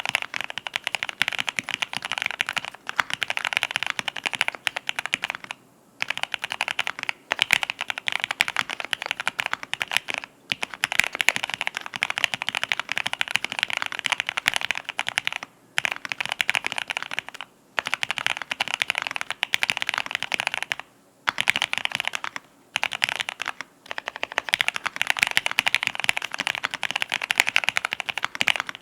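Continuous fast typing on a mechanical keyboard with lubed TTC Golden Red V3 linear switches in an aluminium-plate Monstar K80ALU with PBT keycaps. Dense runs of keystrokes break off for short pauses every few seconds.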